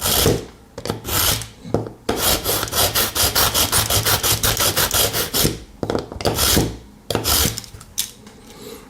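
Steel knife blade being drawn through the spinning ceramic discs of a pocket knife sharpener, scraping and rasping. A few separate pulls come near the start and the end, and in between there is a longer stretch of rapid scraping, about six strokes a second.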